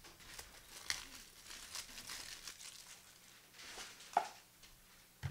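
Foil wrappers of trading-card packs crinkling and tearing as they are opened by hand, in irregular rustles with a few sharp crackles.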